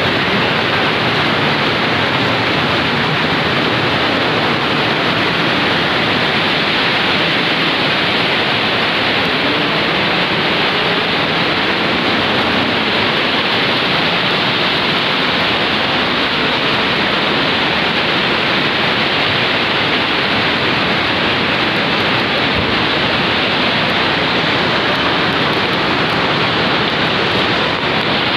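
Steady, unbroken rush of fast-flowing water pouring over a dam and down the river gorge.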